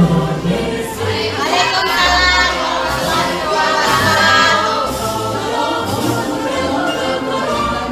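A man and a woman singing a duet into microphones through a PA, with acoustic guitar accompaniment.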